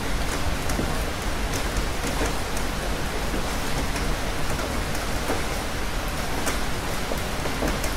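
Steady rain falling: an even hiss flecked with the ticks of individual drops.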